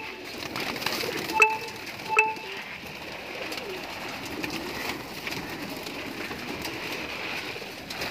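A large flock of domestic fancy pigeons cooing together in a loft, with wings fluttering. About one and a half and two seconds in, two short, sharp high-pitched tones cut through, louder than the flock.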